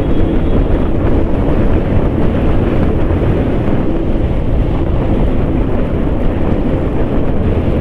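Steady wind rush on the microphone over the engine and road noise of a Hero Xtreme 160R single-cylinder motorcycle ridden at speed on a wet road.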